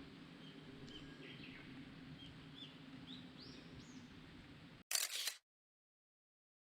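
Small forest birds calling with short high chirps and a few quick rising notes over a steady low background rush. About five seconds in, the sound cuts off into a brief loud burst of noise, then silence.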